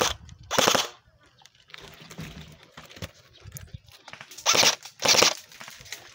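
Short bursts of airsoft rifle fire: two close together near the start, and two more about four and a half seconds in.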